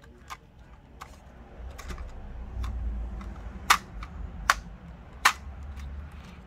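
Small hard clicks and taps from plastic drone parts and tools being handled on a workbench, over a low handling rumble. Three sharp clicks come in the second half, under a second apart.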